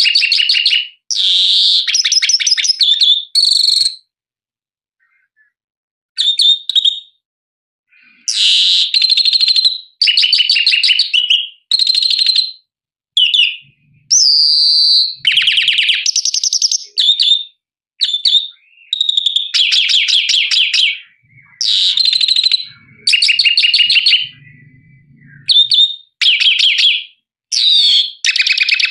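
Grey-capped greenfinch singing: a string of short, fast twittering and trilled phrases with brief pauses between them and one longer break about four seconds in.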